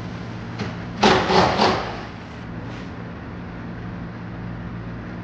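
Three quick, loud metal clatters about a second in, from tools or parts being worked under an engine bay, over a steady low workshop hum.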